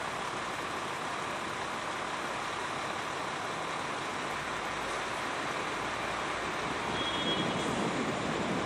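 Steady city street noise of passing road traffic, a little louder near the end.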